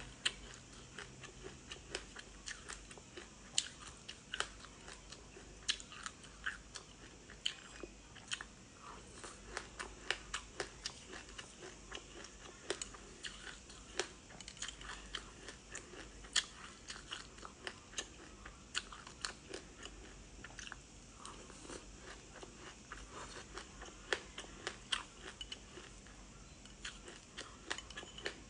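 Close-miked chewing and crunching of frozen passionfruit ice coated in black and white sesame seeds, with many sharp, irregular crunches a few times a second.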